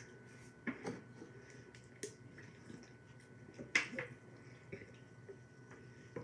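A few scattered sharp clicks and taps from aluminium soda cans being handled and drunk from, over quiet room tone. The loudest click comes a little past halfway.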